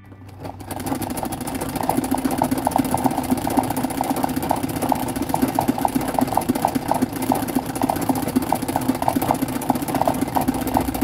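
Treadle-driven straight-stitch sewing machine starting up and stitching at a steady speed, a rhythmic mechanical clatter of the needle bar, used for freehand satin-stitch embroidery filling a petal. It picks up about half a second in and settles to an even run within a second or two.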